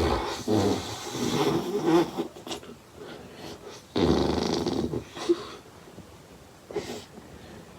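A person snoring: a long snore at the start lasting about two seconds, another about four seconds in, and a brief fainter one near the end.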